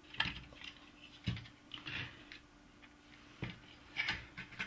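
Light knocks and clicks as an LCD TV switch-mode power supply board is handled and turned over on a sheet of paper. About six separate taps sit over a faint steady hum.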